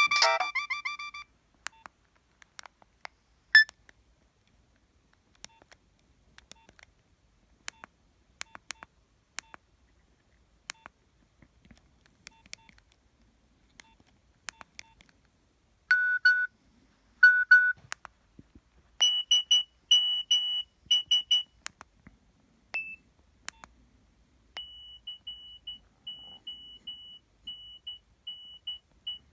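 Nokia 7250i mobile phone: a preloaded ringtone cuts off about a second in, followed by scattered faint clicks of the phone being handled and a few short electronic tones. Near the end a single high beep starts repeating about twice a second.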